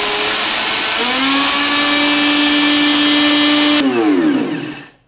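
High-powered blender with a dry grinding container milling dry beluga lentils into flour: a loud motor whine over the grinding noise, rising in pitch about a second in as the lentils break down. It is switched off with about a second left, and the motor whines down to a stop.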